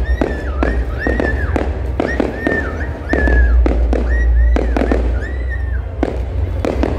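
Aerial fireworks bursting overhead: a quick run of bangs and crackles over a deep rumble. A high whistle-like tone, rising and dipping, repeats about every half second.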